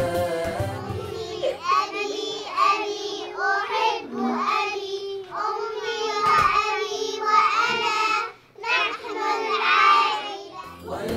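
Young children singing together, with a short pause about eight seconds in.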